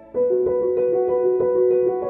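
Background piano music: a piano piece starts just after the opening, its notes repeating in a steady pattern.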